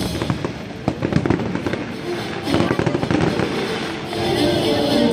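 Aerial fireworks bursting overhead: a run of sharp bangs and crackles. Music with sustained notes comes in from about halfway.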